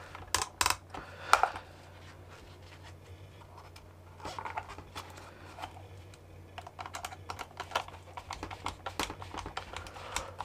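Insulated screwdriver tightening the terminal screws of a red 32 A five-pin three-phase plug, with small plastic and metal clicks and scrapes as the plug body is handled. A few clicks come near the start, and a quicker run of ticks in the second half.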